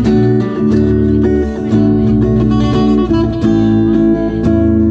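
Background music: a guitar-led track with strummed and plucked acoustic guitar over a steady bass line.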